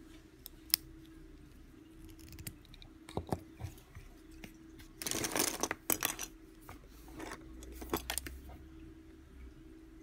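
Mechanical pencils being handled and put down among others on a desk: a few sharp clicks, then a rattling clatter of pencil barrels knocking together about five seconds in, and more clicks near the end.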